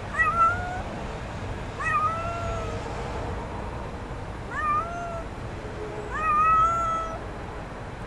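Young kitten meowing four times, each meow rising and then held. The last one is the longest and loudest.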